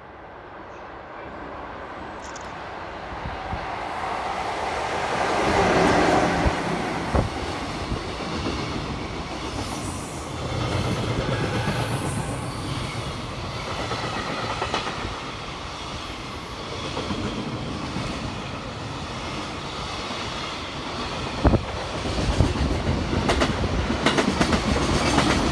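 JR Freight EF66 100-series electric locomotive passing, growing louder as it approaches and loudest about six seconds in. A long string of container wagons then rolls past with a clickety-clack of wheels over the rail joints, with sharp clicks that come thicker near the end.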